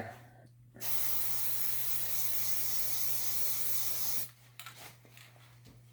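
Aerosol can of spray adhesive spraying a steady hiss onto an orbital sander's pad for about three and a half seconds, starting just under a second in and cutting off sharply. The glue is to make the sander's worn velcro pad hold sandpaper again.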